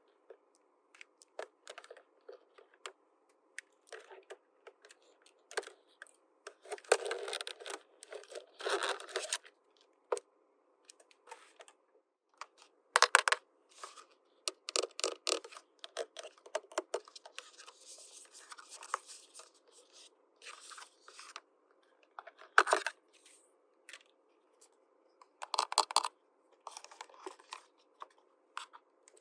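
Small plastic toy pieces and their packaging being handled and unwrapped: scattered clicks and taps, with several short tearing or rasping bursts.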